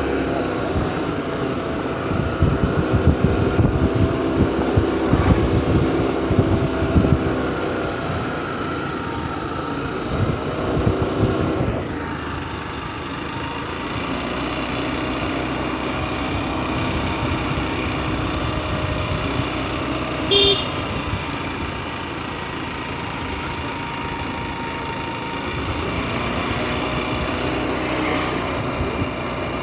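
Motorcycle engine running while riding along, with wind buffeting the microphone, heaviest in the first twelve seconds. A short horn toot sounds about two-thirds of the way through.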